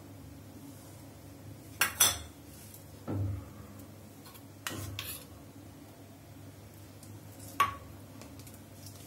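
Kitchen dishes and a spoon clinking: two sharp clinks close together about two seconds in, a dull knock about a second later, another clink near the middle, and a ringing clink of the spoon against a dish near the end.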